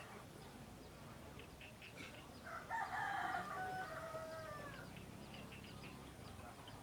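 A rooster crowing once, about two and a half seconds in, a single long call of about two seconds that falls away at the end.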